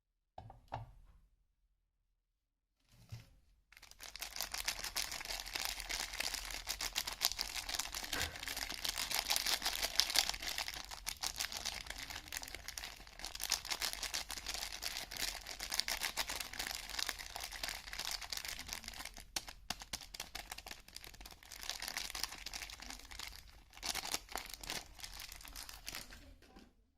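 Soap wrapping crinkling and tearing as a bar of soap is unwrapped. There are two short rustles, then from about four seconds in a dense run of crackles goes on to the end.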